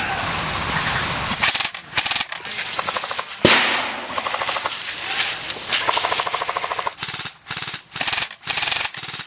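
Airsoft guns firing full-auto bursts as a rapid stream of plastic-BB shots, with several short bursts and brief pauses near the end.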